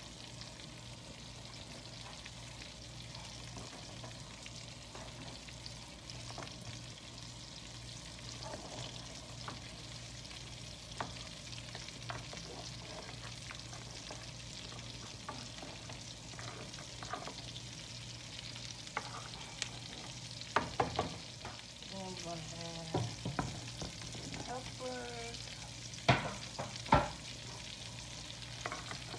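A pot of gumbo broth bubbling steadily on the stove while a spoon stirs crab legs in it. Scattered clinks, with a few sharp clacks of the spoon and shells against the pot about two-thirds in and near the end.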